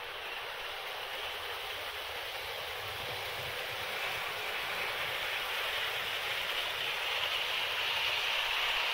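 Hornby Class 43 HST model train running on the layout's track: a steady rushing of the wheels and motor, growing gradually louder as it approaches.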